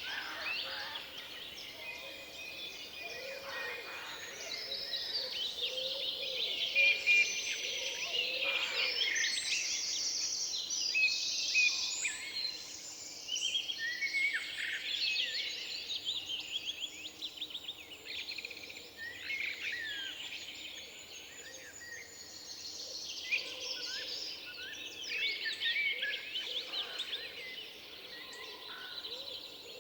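Forest birdsong: several birds singing and calling at once in many overlapping chirps and short song phrases, busiest in the first half and thinning out a little past the middle.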